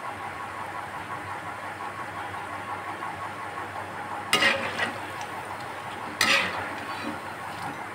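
Mango pakoras deep-frying in hot oil with a steady sizzle. Twice, about four and six seconds in, a slotted spoon scrapes sharply against the pan as they are turned.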